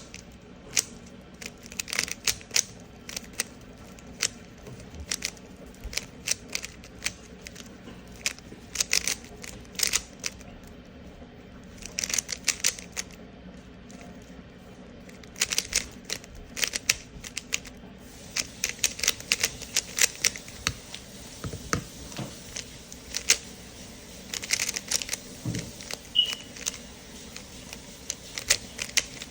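3x3 Rubik's Cube being turned quickly by hand during a speedsolve: rapid plastic clicking and clacking of the layers, in bursts with short pauses.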